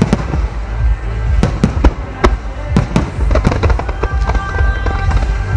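Starmine firework display: about a dozen sharp, irregularly spaced bangs of aerial shells launching and bursting over a continuous low rumble, with music playing along.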